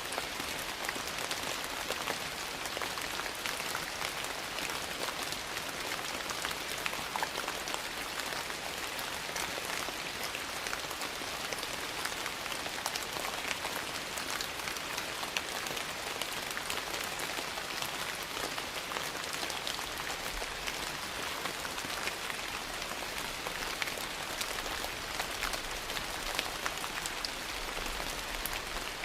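Steady rain falling, with a log fire crackling in a fireplace: a dense, even hiss scattered with many small sharp pops.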